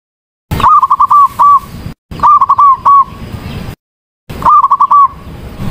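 Female zebra dove (perkutut) cooing: three bouts of rapid, staccato coos, four or five quick notes each at the same pitch. Each bout cuts off abruptly into silence, as in a looped call recording used to lure doves.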